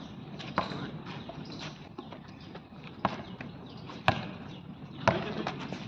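Basketball bouncing on an outdoor concrete court: several sharp, separate bounces, irregularly spaced about a second apart.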